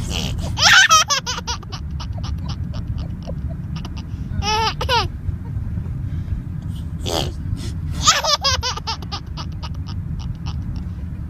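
Baby giggling in about three bursts, near the start, around the middle and about two-thirds through: a high squeal that falls in pitch, then a run of quick breathy laugh pulses. These are among her first giggles. A steady low rumble runs underneath.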